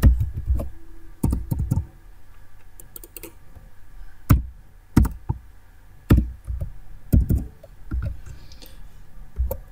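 Computer keyboard keystrokes and mouse clicks, irregular, some with a low thump carried through the desk.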